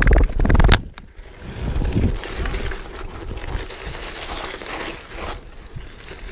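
Mountain bike ridden over a rough trail: a few loud knocks and rattles in the first second, then a steadier rumble and hiss of rolling over the ground.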